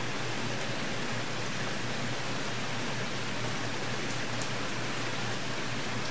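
Steady, even hiss of background noise with no speech or other distinct sound.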